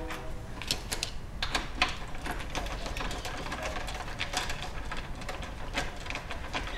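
Quick, irregular run of light metallic clicks and taps as the 8mm bolts are started back into the end plates of a Toyota Prius hybrid battery pack with a small hand tool.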